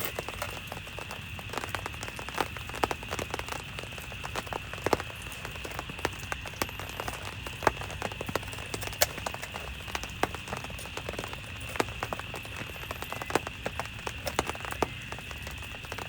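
Rain falling, with large drops tapping sharply and irregularly on a surface close by over a steady rain hiss.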